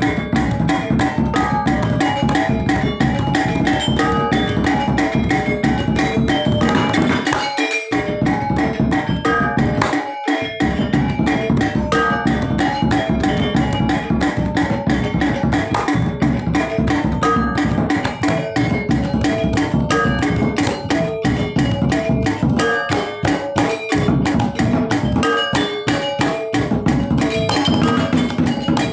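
Balinese gamelan music with rapid interlocking metallophone strokes over kendang drumming, briefly dropping out in the low end twice, about 8 and 10 seconds in.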